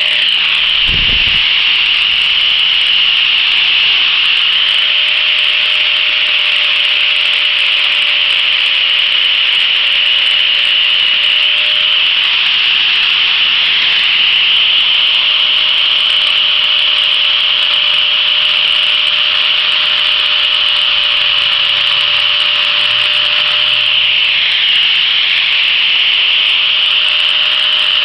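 Power sander with a disc running steadily against a purpleheart wood handle, sanding it to shape: a loud, even, high-pitched rasping hiss over a faint steady motor whine.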